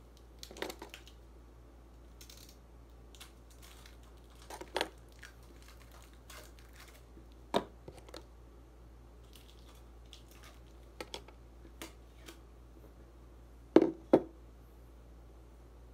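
Packaging and parts being handled on a table: scattered rustles and short clicks, with two sharper knocks close together near the end, the loudest sounds here.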